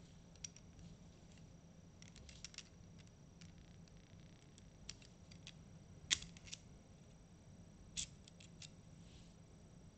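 Small metallic clicks and light clacks from the steel fire control unit of a Sig Sauer P320 pistol being handled. The two sharpest clicks come about six seconds in and about eight seconds in.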